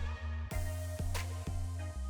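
Background music with a heavy bass and a steady electronic beat.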